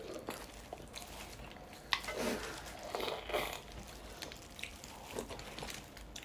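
Faint close-up eating sounds: chewing and biting on sinigang, with small wet clicks and a couple of louder mouth noises about two and three seconds in.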